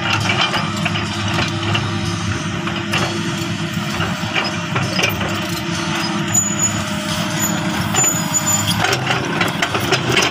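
Crawler excavator's diesel engine running steadily under load as the machine moves over a dirt mound, with scattered knocks and clanks from the tracks and body.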